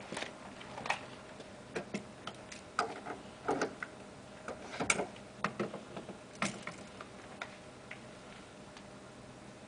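Irregular footsteps and small clicks and knocks as a person walks beside a car and opens its fuel filler flap; the sounds thin out after about seven seconds.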